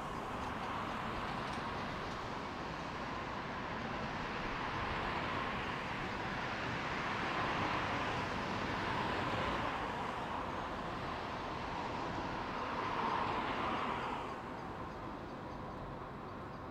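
Hopper wagons of a stone train rolling away along the track: steady wheel-on-rail noise that drops away about fourteen seconds in.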